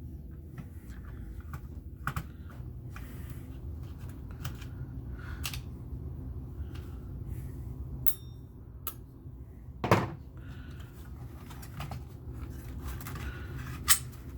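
Hard plastic and metal computer parts being handled on a table: scattered light clicks and taps, with a sharper knock about ten seconds in and another near the end, over a steady low hum.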